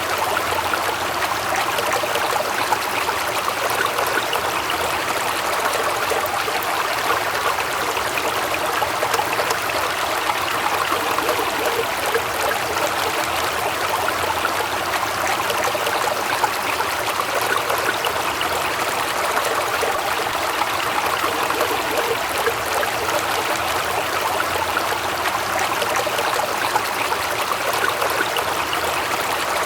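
Waterfall water rushing and splashing in a steady, unbroken roar.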